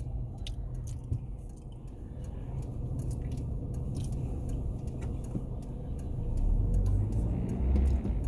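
Strong wind, a steady low rumble that swells louder from about six seconds in, with scattered faint ticks over it.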